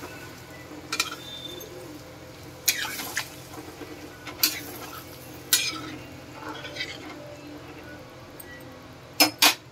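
Spatula stirring a watery taro-root curry in a steel kadhai, scraping and clinking against the pan now and then, with two sharp knocks close together near the end.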